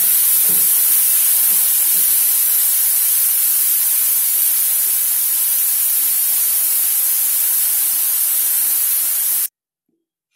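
Chopped onions sizzling in hot oil in a kadai, a loud steady hiss that cuts off suddenly near the end.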